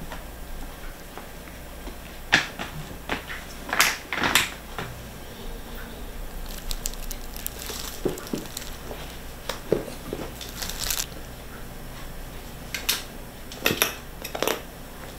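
Plastic cat-food bag rustling and crinkling as it is handled, in short scattered crinkles and clicks rather than one continuous rustle.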